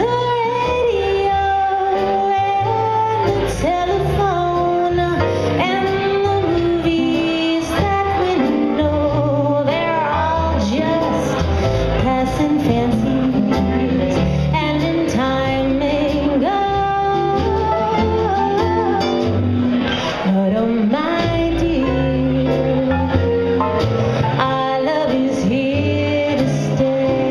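Small jazz group with drum kit and saxophone playing a swing ballad, with a female vocalist singing the melody.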